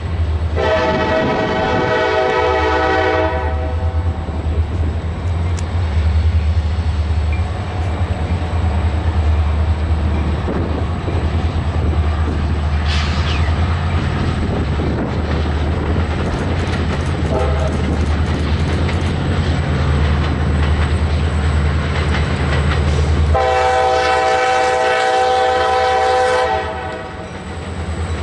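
Diesel freight locomotives running as they approach, with a steady low engine rumble and some wheel noise on the rails. A multi-note locomotive horn sounds two long blasts of about three seconds each, one right at the start and one about 23 seconds in.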